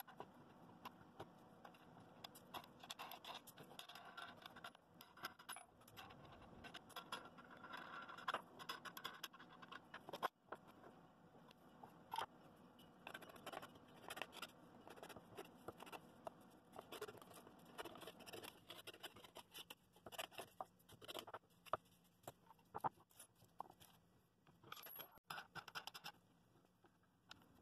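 Faint, irregular scraping and light clicks of pine bowl rings being handled and lined up on a bench, with one sharper tap about ten seconds in.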